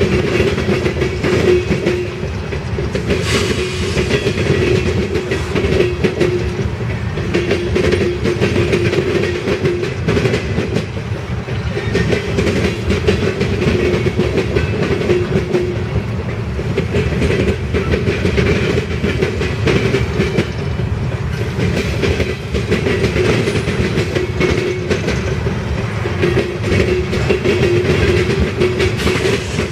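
Coal hopper cars of a freight train rolling past: a steady rumble of steel wheels on rail, with clickety-clack from the wheels crossing rail joints and a humming tone that swells and fades every few seconds.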